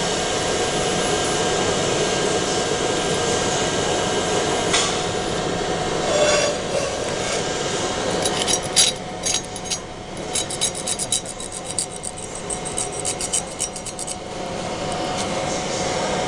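CO2 laser engraving machine marking ceramic: a steady hum of fans and air, with a fast run of crackling ticks from about eight to fourteen seconds in.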